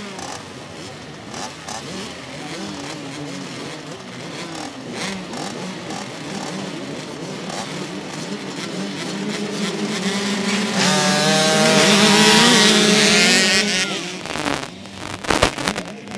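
A pack of small 50–65 cc youth motocross bikes revving at the start line, many engines blipping over one another. About eleven seconds in they rise to a loud, sustained rev together, then drop away, followed by a few sharp loud bangs as the pack launches off the line.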